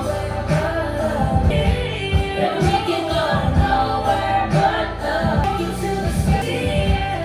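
Background music: a pop song with a sung melody over a steady beat and bass.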